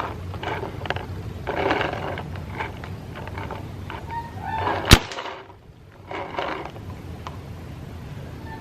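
Proto PM6 paintball marker firing a single sharp, loud shot about five seconds in, against softer rushes of noise.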